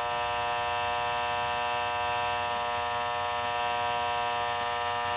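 Steady electrical buzz with many overtones, holding at an even level throughout.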